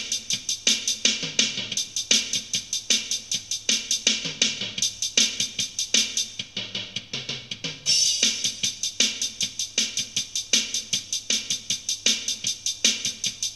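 Alesis Nitro Mesh electronic drum kit played solo: a steady rock beat of kick, snare and hi-hat, with a cymbal crash about eight seconds in.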